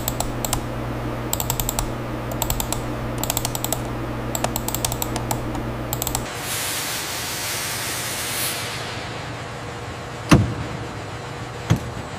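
Computer keyboard typing in short bursts of rapid clicks over a steady low hum for about six seconds. Then the typing stops and a rushing hiss swells and fades, followed by two sharp knocks near the end.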